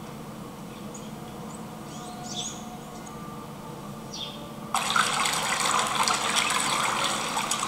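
A film soundtrack played over a hall's speakers: quiet indoor ambience with a couple of faint high chirps, then about two-thirds of the way in an abrupt cut to loud rushing water washing against a bank.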